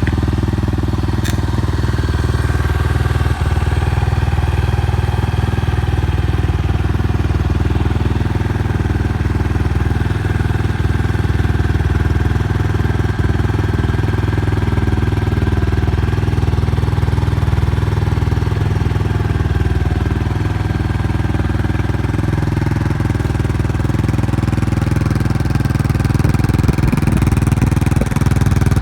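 Yamaha Tricker's 250 cc air-cooled single-cylinder engine idling steadily through a DIRTFREAK Delta aftermarket full exhaust, getting a little louder near the end. It runs with no abnormal noises.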